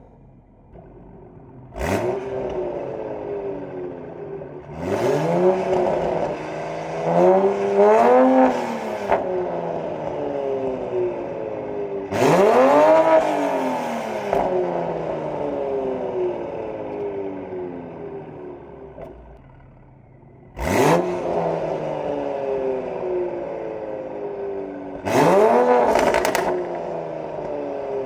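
Toyota MK5 Supra's B58 3.0-litre turbocharged straight-six revved repeatedly while standing, through a catless-downpipe Fi Exhaust valvetronic system. About six blips climb sharply and fall back to idle, with the exhaust valves closed for the first revs and open for the later ones. The burble function is off, so there is no overrun popping.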